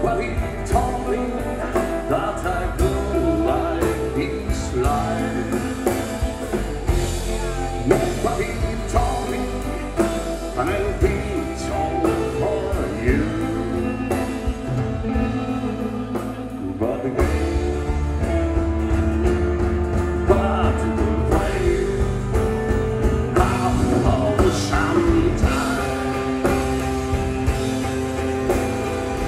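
Rock band playing live, with guitars, bass and drums under a sung lead vocal.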